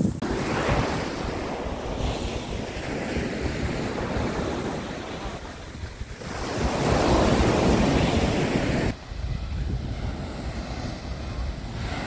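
Sea surf breaking and washing up a sandy beach, with wind rumbling on the microphone. The wash swells louder from about six seconds in and drops suddenly about nine seconds in.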